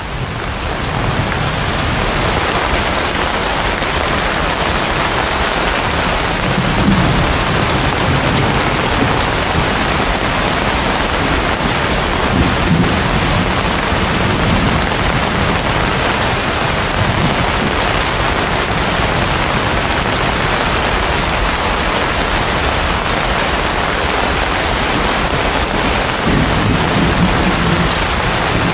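Heavy rain falling steadily on banana leaves and palm fronds: a dense, even hiss that fades in over the first second or two. Low rumbles swell up under it a few times.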